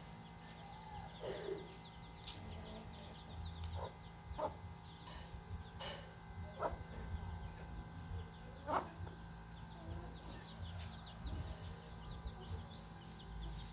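Hen clucking in short, scattered low notes about once a second, with faint high peeping from her chicks.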